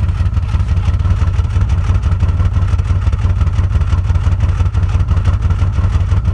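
Exhaust of a 1995 Nissan Maxima's 3.0 L V6 at a rough idle, a low, uneven pulsing note. The idle is unsteady with the RPM dipping toward 450–500, and the engine feels like it's missing, a fault that clears once it is revved to 6–7 thousand RPM.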